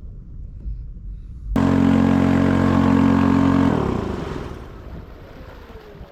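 A small outboard motor running steadily, starting abruptly about a second and a half in; after about two seconds its pitch falls and it fades away.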